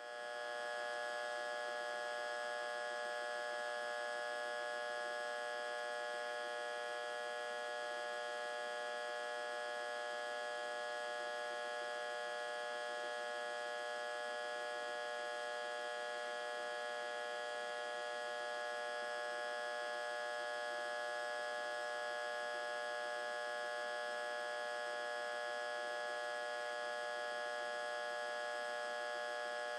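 Electric transformer humming steadily, a buzzing tone with many overtones that holds unchanged throughout.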